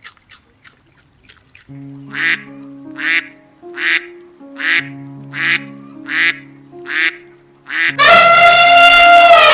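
Background music with sustained notes under a short animal call repeated about eight times, roughly one every 0.7 s. Near the end a loud, long call takes over, falling slightly in pitch.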